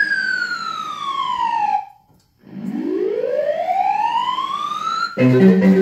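Smart Prize Time claw machine's electronic sound effect: a falling tone as the claw drops, a half-second break while it grabs, then a rising tone as the claw lifts back up. The machine's marimba-like game music starts again near the end.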